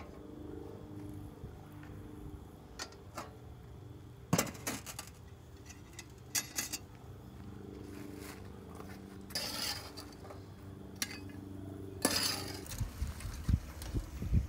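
Clinks and scrapes of charcoal briquettes and cast iron being handled: coals shifted with a small metal shovel on a steel fire table and the coal-covered Dutch oven lid lifted off. There are scattered sharp clinks and two longer scraping sounds in the second half.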